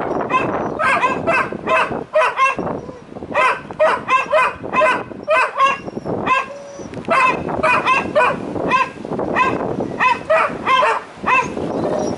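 Two spaniels barking up into a tree, a fast run of short, high-pitched barks a few a second that sometimes overlap, with brief lulls about two seconds in and again past the middle.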